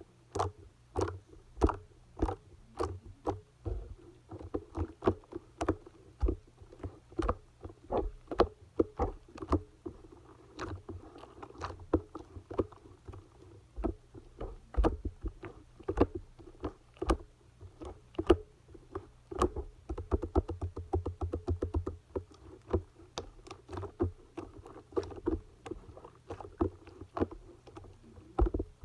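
Slime mixed with clay being squeezed and poked by hand, giving irregular squishy clicks and pops several times a second, with a quicker run of small clicks about two-thirds of the way through.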